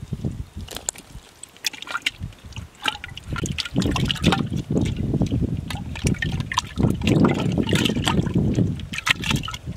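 Water sloshing and splashing, with many short irregular splashes, heavier and louder from about four seconds in.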